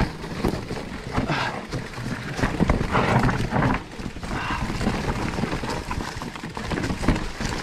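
Specialized Turbo Levo electric mountain bike descending a rocky, leaf-strewn trail: tyres crunching and knocking over stones, with the bike clattering at each impact in an irregular run of knocks.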